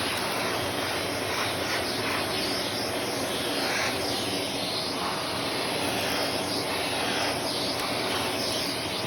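Shark Navigator Lift-Away Professional UV540 upright vacuum running steadily, its motor whine and suction rushing on, with the airflow sound swelling and falling every second or so.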